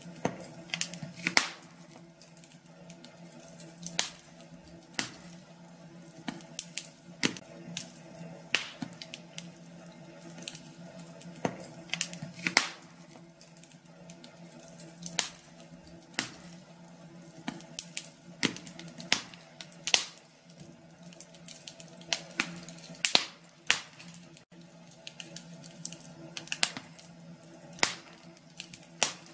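Wood fire crackling in a fireplace: irregular sharp pops and snaps, sometimes several in quick succession, over a faint steady hum.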